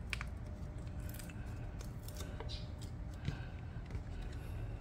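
Faint handling sounds of a textured adhesive grip panel being fitted to a pistol's polymer frame: scattered light scratches and small clicks over a low steady hum.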